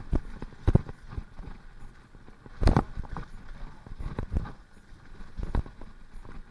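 Mountain bike rattling and knocking as it rides fast down a rough dirt singletrack, with irregular jolts over bumps and roots and the hardest hit a little under three seconds in, over a steady rush of tyres on dirt.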